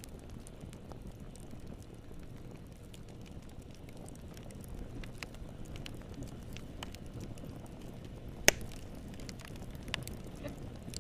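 Wood fire crackling in a fireplace: a low, steady rumble of flames with scattered small crackles, one sharp loud pop about eight and a half seconds in, and a smaller pop about a second and a half later.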